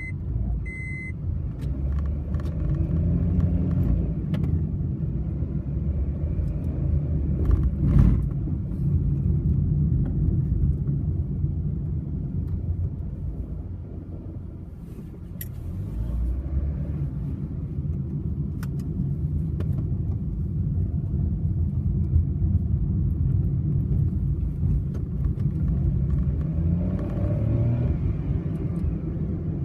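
Honda N-BOX kei car driving on a steep hill: a steady low rumble of engine and road noise, with a few sharp clicks or knocks, the strongest about eight seconds in. These clicks are the kind of abnormal noise the car is being checked for.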